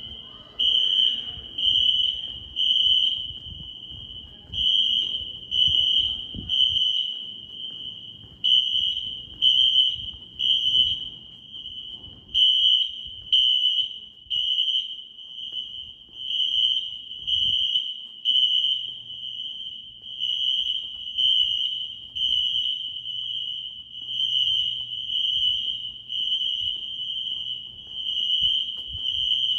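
Wheelock NS electronic fire alarm horns sounding a high-pitched beep in the temporal-3 evacuation pattern: three beeps, a pause, then repeating about every four seconds. Several horns overlap slightly out of step.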